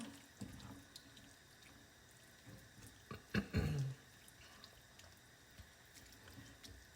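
Faint liquid sounds of chicken broth in a pan with flour and vegetables, small scattered drips and pops. A louder short knock comes about three and a half seconds in.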